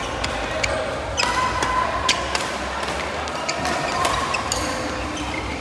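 Badminton rackets striking shuttlecocks in a large sports hall, a string of sharp clicks from this and neighbouring courts over a steady echoing hall din, with a few short squeaks or calls mixed in.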